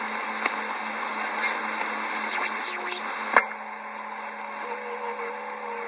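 CB radio receiver on channel 28 hissing with steady band static between transmissions, the narrow, muffled hiss of an AM receiver. A sharp pop comes about three and a half seconds in, and a faint wavering carrier whistle comes in near the end.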